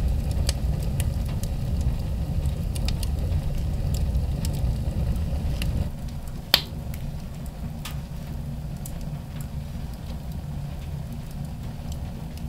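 Small wood stove burning hard with a strong draft: a steady low rumble from the firebox, with scattered crackles and ticks and one sharp crack a little past halfway. The rumble drops somewhat about halfway through.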